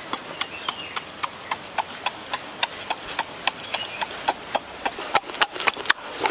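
Rhythmic clicking, about four sharp clicks a second, over a faint steady high-pitched hum.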